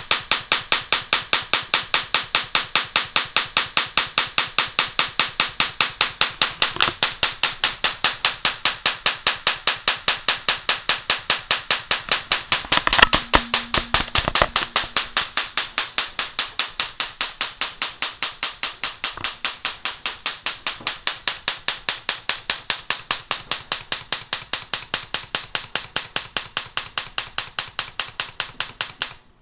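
High-voltage ignition-coil spark cracking across a small gap between two wire leads wet with sprayed water, pulsed by a relay in a fast, steady train of sharp snaps, boiling off the water as it fires. It turns rougher and louder about 13 seconds in, and the train stops abruptly just before the end.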